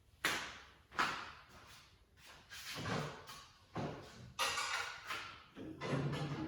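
Rummaging and handling noises: a series of about six knocks, scrapes and rustles as items and packaging are moved about.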